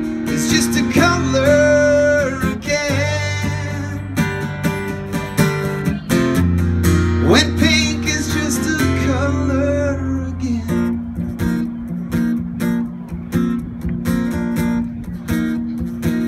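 Acoustic guitars strumming and picking the closing bars of a country song, with a man's voice holding long sung notes in the first half. From about eleven seconds in, only the guitar strumming goes on.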